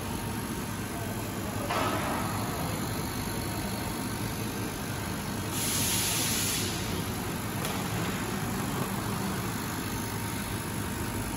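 Mixed laser cutting machine running while it cuts acrylic: a steady mechanical hum with a faint steady tone through it. A brief louder hiss comes about six seconds in.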